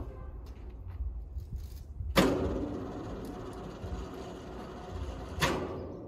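Sawmill machinery with a steady low rumble, a sudden loud bang about two seconds in that rings on and fades over a couple of seconds, and a second sharp bang near the end.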